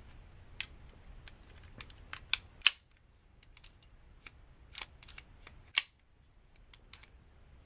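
Sharp small clicks and clacks of an airsoft gas blowback pistol's parts worked by hand, the blowback unit riding over a new Nexx speed hammer and catching on it slightly. The loudest clicks come about two and a half seconds in and again near six seconds.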